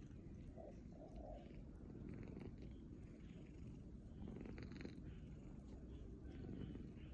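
Calico cat purring, a low rumble that swells and eases.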